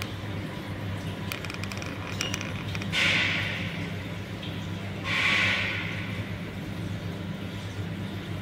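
A steady low hum with two short hissing rushes of noise, about three and five seconds in.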